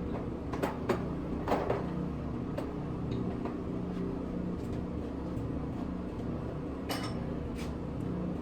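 A few scattered clicks and clanks of tools and parts being handled, over a steady low mechanical hum.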